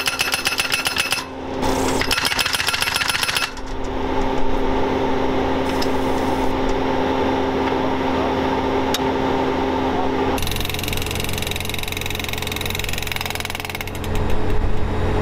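Skid steer-mounted hydraulic post driver at work. There are rapid, rattling hammer strikes for the first three seconds or so and again near the end, and the skid steer's engine and hydraulics run steadily in between.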